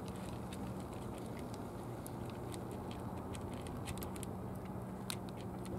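Cats crunching dry kibble: many small, irregular clicks over a steady low hum.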